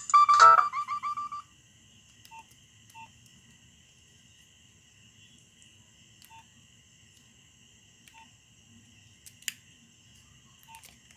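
Nokia 6010 ringtone melody in electronic beep tones playing its last few notes and stopping about a second and a half in. After that only a faint steady electronic whine remains, with a few short soft beeps and a single click.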